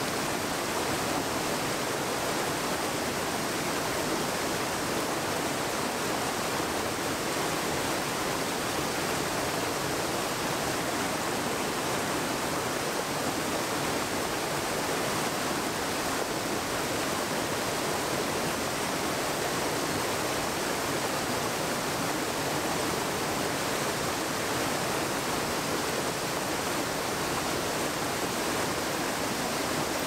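Small rocky stream cascading over boulders: a steady, unbroken rush of water.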